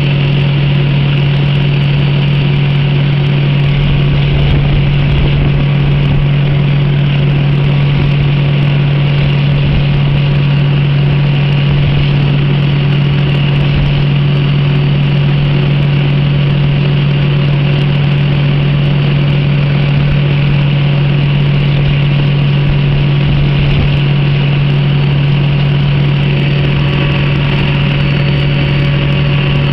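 A train's diesel engine running steadily with an even, deep drone, heard from inside the driver's cab as the train travels.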